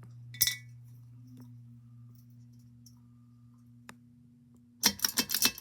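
Ceiling fan pull-chain switch clicking once, about half a second in, as the fan is switched off. A steady low electrical hum from the fan motor follows and stops near the end, where a quick run of loud clicks and rattles takes over.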